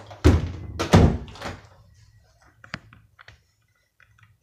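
Two dull thumps about a second apart, then a single sharp click a couple of seconds later.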